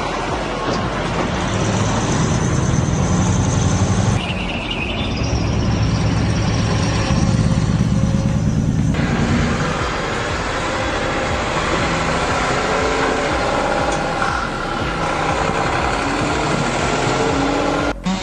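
Loaded logging truck's diesel engine running under load, a deep steady drone that changes abruptly about four and nine seconds in.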